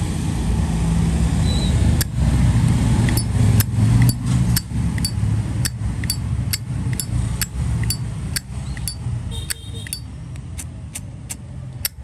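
Zippo lighter lid repeatedly flipped open and snapped shut, sharp metallic clicks about two to three a second, starting about two seconds in, over a steady low rumble.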